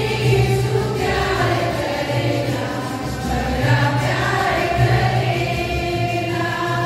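Choir singing a hymn in several voices over a steady low accompaniment.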